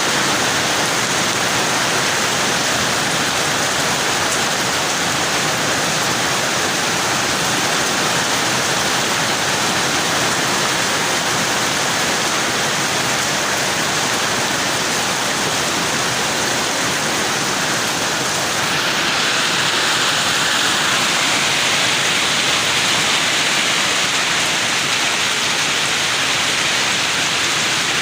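Steady rain falling, a dense even hiss; about two-thirds of the way through it turns a little louder and brighter.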